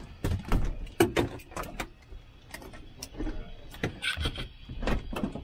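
Irregular clicks, knocks and rustling of people moving about in a small plane's cabin and pulling off their headsets. There is no engine running.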